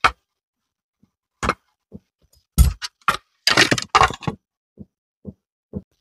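Pliers working at the metal shell of a broken charging port on a router's circuit board: a string of sharp metallic clicks and clinks, the loudest with a thud about two and a half seconds in and a quick rattling cluster around four seconds. The steel shell is being broken away before the socket is desoldered.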